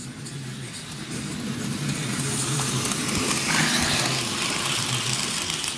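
HO scale model diesel locomotive (Athearn CSX EMD GP40-2) running on its track: a steady electric-motor hum and the whir of wheels on rail, growing louder as it passes close by about three and a half seconds in, then easing off.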